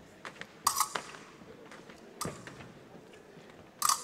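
Épée blades clashing: a few sharp metallic hits with a short ring, the loudest about a second in, another past two seconds and one near the end.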